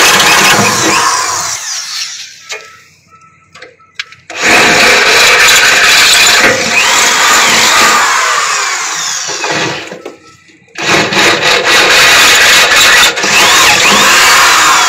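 Variable-speed electric drill boring an anchor hole through steel plate, stepping up through bit sizes. It runs in three long stretches, stopping for about three seconds a couple of seconds in and again briefly around ten seconds in, with a few light clicks in the first pause.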